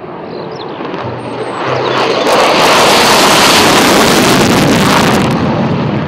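F-16 fighter jet taking off on afterburner: the jet noise builds over the first two seconds, stays at its loudest through the middle, and eases slightly near the end.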